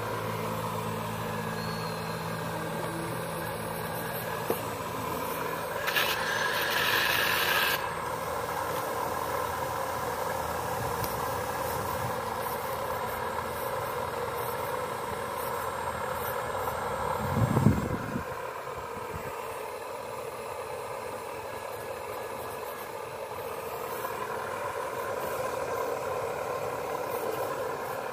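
Radio-controlled hydraulic scale Cat 336D excavator digging, its pump and motors running with a steady whine. A burst of hiss comes about six seconds in and lasts under two seconds, and a short low thump, the loudest moment, comes near eighteen seconds.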